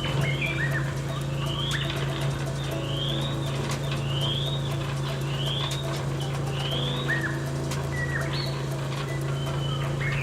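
A bird calling repeatedly, with short rising chirps about once a second and a few hooked down-slurred notes. Underneath runs a steady low hum with fine rapid ticking.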